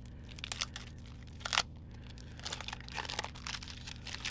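Clear cellophane sleeve around a sticker kit crinkling as it is handled: scattered sharp crackles, the loudest about a second and a half in, with a busier run of crackles near the end.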